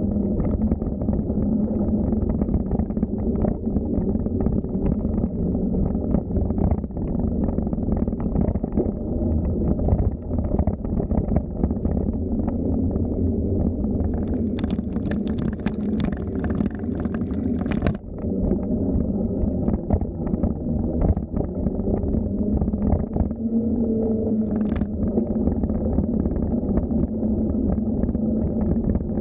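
Steady rumbling wind and road noise from riding a bicycle over a park path, with frequent small rattles and knocks from the bike. For a few seconds about halfway through, a brighter, higher rattling joins in.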